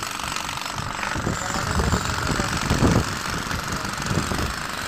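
An engine running at idle, a low uneven rumble that swells loudest for a moment about three seconds in.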